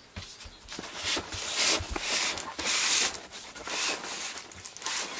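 A cardboard shipping box being grabbed and shifted, with irregular rustling and scraping and a few light knocks.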